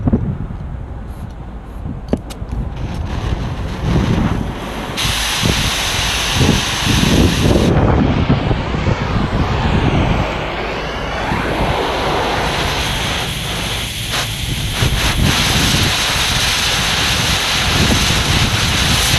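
A large engine running steadily, with wind buffeting the microphone. A loud hiss starts sharply about five seconds in and cuts off just under three seconds later.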